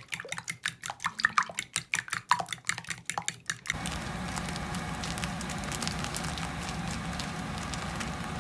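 Utensil rapidly beating a thick egg-and-milk custard mixture in a ceramic bowl, many quick clicks and taps against the bowl. About three and a half seconds in it cuts to a steady hiss with a low hum.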